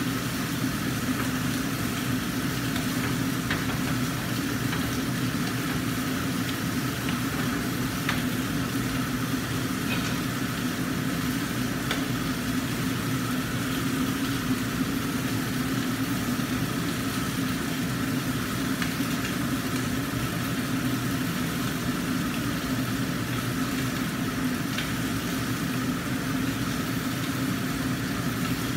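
Mackerel frying in a covered wok, a steady sizzle with a few faint spatters, over a steady low mechanical hum.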